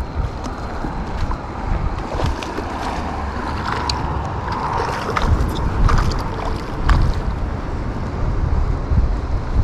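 Creek water running and splashing, with wind buffeting the microphone in gusts and a few sharp ticks over it.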